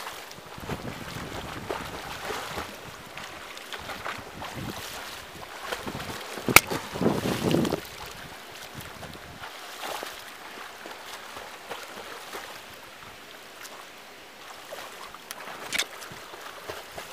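Pool water splashing and swishing under a swimmer's front-crawl strokes, with wind noise on the microphone. A sharp click about six and a half seconds in.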